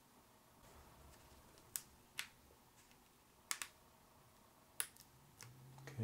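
About five faint, sharp clicks at irregular intervals, with near silence between them: fingernails picking at the tape on a laptop battery's cable and plastic.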